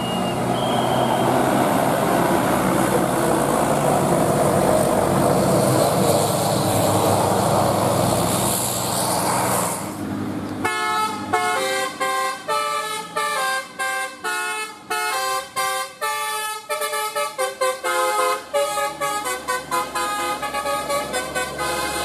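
A tour bus passes close with engine and tyre noise; about halfway through, a multi-tone telolet basuri bus horn starts up, playing a quick melody of short notes with brief gaps between them.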